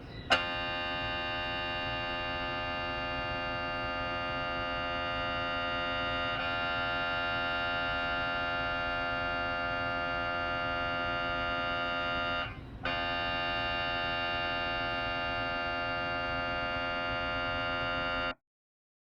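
Philips 1.5T MRI scanner's gradient coils buzzing with a steady, many-toned drone during a scan sequence. It starts with a sharp click, drops out briefly about two-thirds of the way through, and cuts off abruptly near the end.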